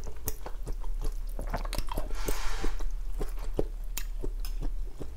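Close-miked chewing of a mouthful of kuay jap noodle soup (pork, meatballs, noodles), a run of short wet mouth clicks and bites, with a brief rushing noise about two seconds in.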